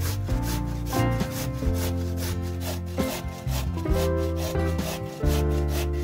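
Raw potato grated on a stainless steel box grater: quick, repeated rasping strokes in a steady rhythm. Background music plays underneath.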